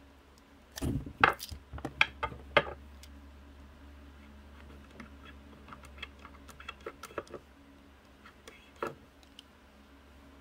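Clicks and taps of a utility knife working on a small sewing-machine motor pulley as leather is trimmed for its friction surface: a quick cluster of sharp clicks about a second in, then lighter scattered clicks.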